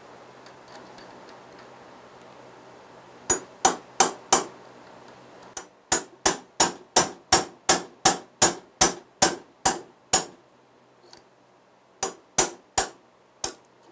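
Hammer striking a pin punch to drive the roll pin out of a Tremec T56 transmission's shift lever: sharp metal-on-metal taps. Four quick taps come about three seconds in, then a steady run of about fourteen at roughly three a second, then four more near the end.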